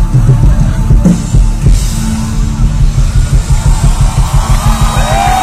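Loud live rock music over a concert PA: a steady drum beat with heavy bass, a held low bass note coming in partway through, and a gliding lead melody entering near the end.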